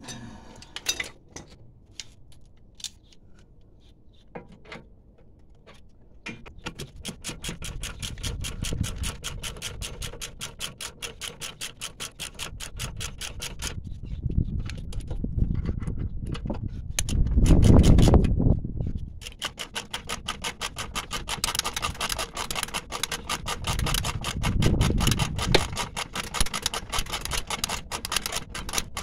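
Hand socket ratchet clicking rapidly and steadily as it winds in the brake caliper bracket bolts, in two long runs with a short break about two-thirds of the way through. A louder low rumble sits under the clicking near the middle, and a few scattered clicks and knocks come in the first few seconds.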